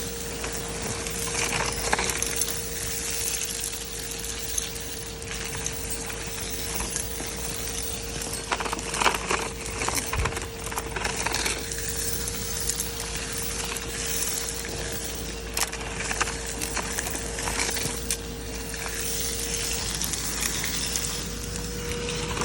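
Henry vacuum cleaner running with a steady motor whine while its hose sucks up debris that clicks and rattles through it, filling the bag.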